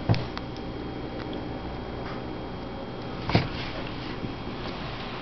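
Handling noise while a screen-protector film is being fitted: two short knocks about three seconds apart, the second the louder, over a steady low hum.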